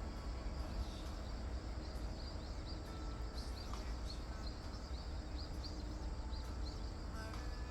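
A small bird chirping repeatedly, short high falling notes about two a second, over a steady low rumble.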